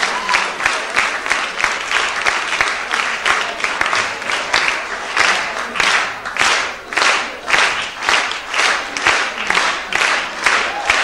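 An audience clapping in unison, about three claps a second, in a steady rhythmic applause.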